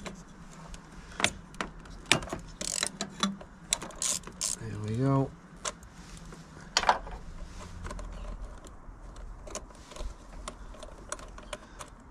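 Ratchet socket wrench clicking and tools tapping on metal as a 10 mm bolt is undone from the 100 amp main fuse in a car's engine-bay fuse box. The clicks come irregularly, with a quick run of ratchet clicks about five seconds in.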